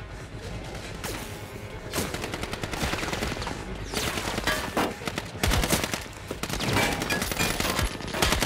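Heavy gunfire in rapid, overlapping bursts of automatic fire, starting about two seconds in and continuing in dense volleys.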